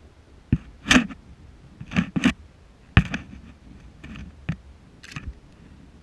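Handling noise from camera gear with a Nikon lens: a string of irregular sharp clicks and short scraping rustles as it is moved.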